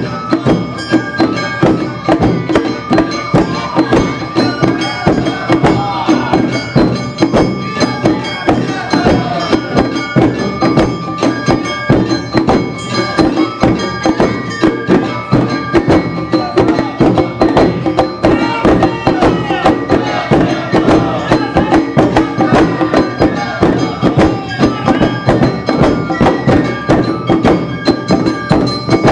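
Awa Odori dance music played live: drums and a ringing metal hand gong keep a fast, even beat under a melody line.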